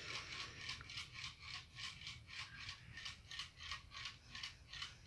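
Unwired vintage 36-inch metal ceiling fan spun by hand, its motor and bearings ticking faintly and evenly, about five ticks a second, as the blades coast.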